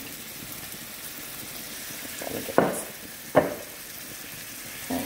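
Ground-chuck hamburger patties and butter sizzling steadily in a skillet, with two sharp knocks a little under a second apart near the middle as onion and pepper strips are dropped into the pan.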